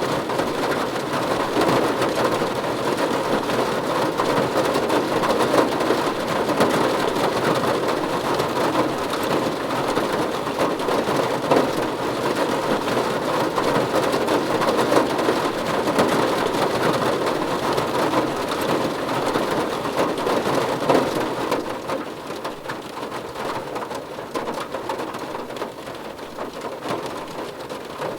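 Heavy rain pattering on a car's roof and windows, heard from inside the cabin as a dense, steady patter of drops. It eases a little about three-quarters of the way through.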